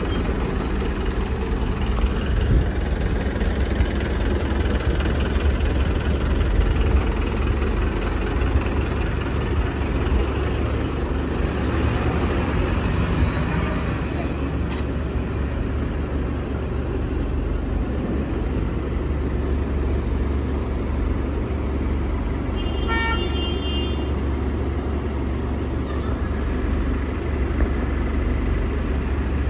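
Optare Solo Versa bus running on the move, heard from inside: a steady low engine and road rumble. A brief series of beeping tones about two-thirds of the way through.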